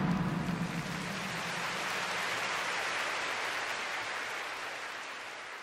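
Large stadium crowd applauding after a pop song ends, an even wash of clapping that swells slightly and then fades out near the end. The last of the music dies away in the first second.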